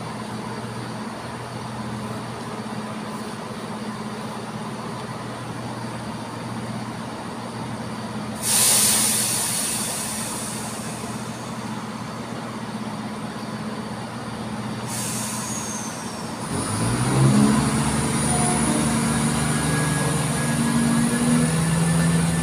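Class 170 Turbostar diesel multiple unit idling with a steady engine hum. About a third of the way in there is a sudden loud hiss of air that fades over a couple of seconds, and later a shorter hiss. Then the engines open up, louder and rising in pitch, as the train pulls away.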